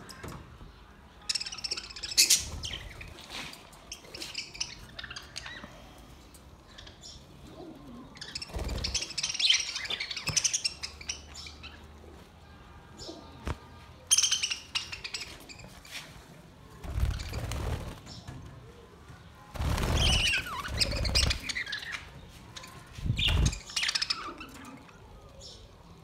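A flock of budgerigars chattering and chirping in several bursts, with wings flapping as birds fly about the aviary.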